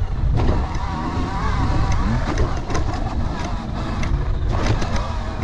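Surron Storm Bee electric dirt bike's motor whining, its pitch rising and falling with the throttle, under heavy wind rumble on the microphone. Scattered knocks and rattles come from the bike running over bumpy grass.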